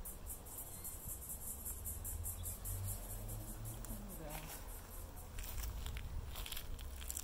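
Honeybees buzzing around an open hive box, with one bee's buzz sliding up in pitch as it passes close about four seconds in. A rapid, high pulsing insect chirr runs behind it, growing stronger after about five seconds.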